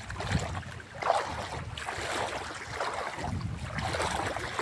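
Wind buffeting the microphone in uneven gusts, over the wash of water around a small boat.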